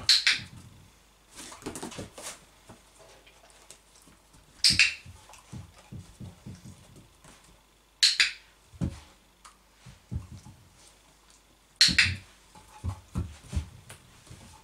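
A dog-training clicker clicks four times, a few seconds apart, each click marking the dog resting its chin on the chair seat. Quieter taps and knocks follow each click.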